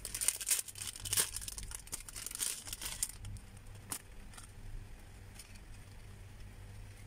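Crinkling of a small clear plastic packet being handled and pulled open, dense for the first three seconds or so, then a few scattered crackles before it dies away.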